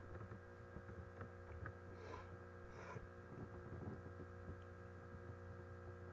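Near silence: a faint steady electrical hum, with two soft faint rustles about two and three seconds in.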